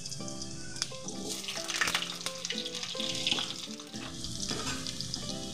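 Potato wedges sizzling in hot mustard oil in a karahi, with a steady crackle as a spatula turns them. Background music plays over it.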